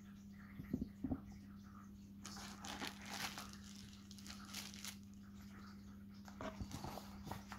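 Plastic bubble wrap crinkling as it is handled, with two soft knocks about a second in and longer stretches of crackling through the middle and near the end.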